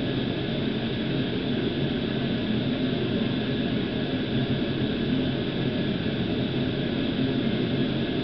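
Steady mechanical hum with a low, unchanging drone over an even hiss, like a fan or other motor-driven shop equipment running continuously.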